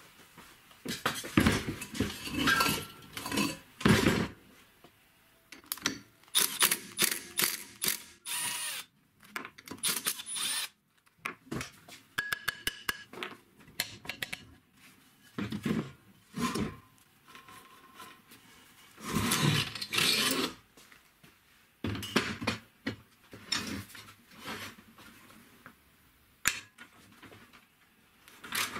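Irregular clanks, scrapes and clicks of metal being handled and worked with a hand wrench: a rusty old car brake drum and wheel hub being shifted on a workbench and turned in a vise. The sounds come in short bursts separated by pauses.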